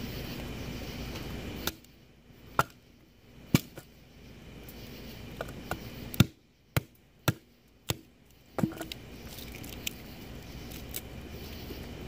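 Wood fire burning in a titanium tent stove: a string of about ten sharp pops and snaps over several seconds. Under them is a steady background rumble that drops away about two seconds in and returns near the end.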